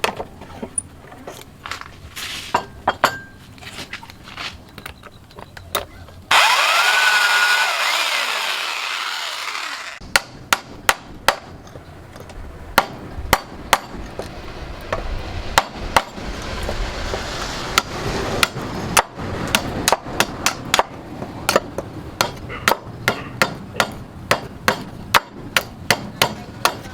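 Hand-tool work with a hammer: repeated sharp taps, at times about two a second. For a few seconds around the first third, a loud, hissing power tool starts and then stops abruptly.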